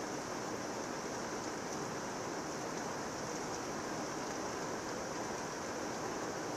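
Heavy rain pouring down in a thunderstorm, a steady, even hiss with no thunder claps.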